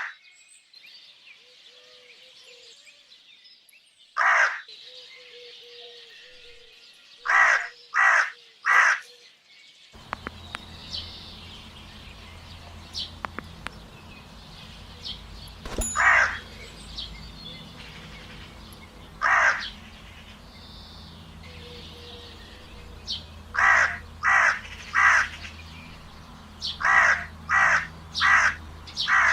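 Crow cawing: harsh calls that come singly and in quick runs of three or four, each run about half a second between calls. About ten seconds in, a steady low hum and faint higher chirps of other birds start underneath the caws.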